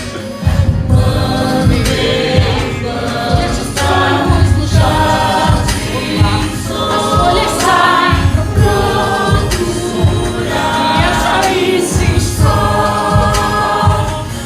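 A choir of voices singing over band accompaniment with a steady beat.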